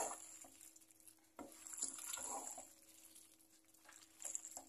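Wooden spoon stirring cooked macaroni in tomato sauce in a coated pot, making quiet, scattered wet scrapes and squelches, with a faint steady hum underneath.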